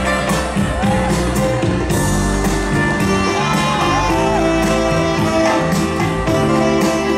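Live band music: electric guitar and bass over drums keeping a steady beat.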